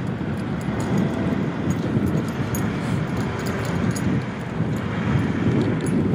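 Cars and a pickup truck passing close by on the road, mixed with wind rumbling on the microphone.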